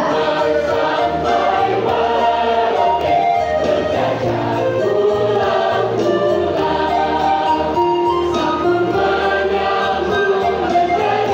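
A school choir singing in parts, accompanied by electronic keyboards with a steady bass line under the held notes.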